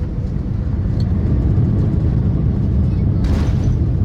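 Steady low rumble of a moving vehicle heard from inside, with a brief hiss about three seconds in.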